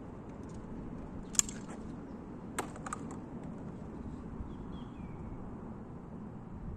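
Break-action shotgun being handled between shots: one sharp metallic click as the action opens, then two lighter clicks about a second later as shells are handled. Faint bird chirps over a steady outdoor background.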